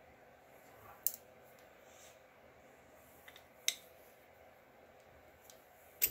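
A few sharp, short clicks at uneven intervals as a circlip is worked onto the shaft of a steel oil pump gear in a motorcycle engine. The loudest clicks fall just before the middle and near the end.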